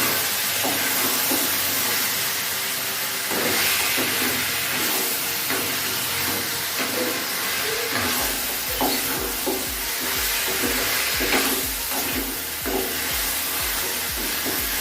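Chicken sizzling in oil in a pan while it is stirred, with repeated knocks and scrapes of the spatula against the pan.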